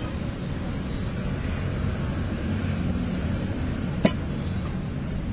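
Steady low rumble of street traffic, with one sharp click about four seconds in and a fainter click near the end.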